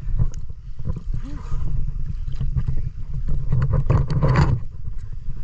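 Water sloshing and rumbling against the camera's microphone, with irregular knocks and a louder burst of splashing about four seconds in.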